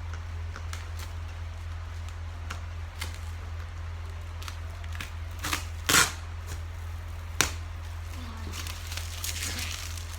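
Packaging being handled: scattered clicks and plastic rustling, with a louder crackle about six seconds in and a sharp click a second later, over a steady low electrical hum.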